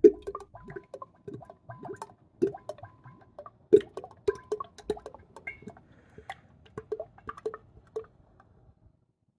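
Background music of sparse plucked notes, played one after another and dying away about a second before the end.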